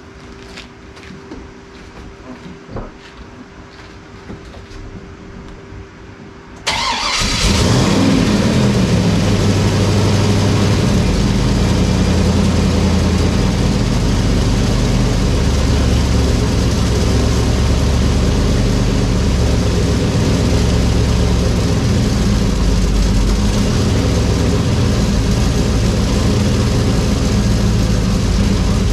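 LS V8 with a freshly installed BTR Stage 3 turbo cam firing on its first start, about seven seconds in, after a quieter stretch with a faint steady hum and light clicks. It then runs loud and steady with an uneven low rumble, not yet tuned for the new cam.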